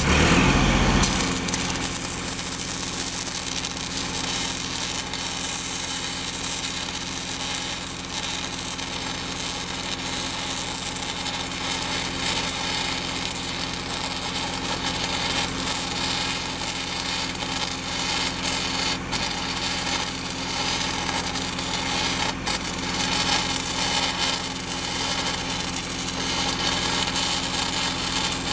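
Stick (SMAW) welding arc crackling and hissing steadily as a bead is run on the heavy steel of an excavator bucket ear. The arc strikes about a second in.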